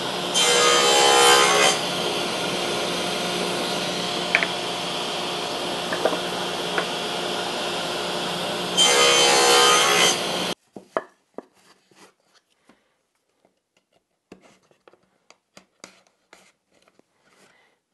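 Table saw running steadily, cutting into wood twice, about half a second in and again near nine seconds, each cut louder than the idle run. The saw sound cuts off abruptly about ten and a half seconds in, and light taps and rubs of small wooden pieces being handled follow.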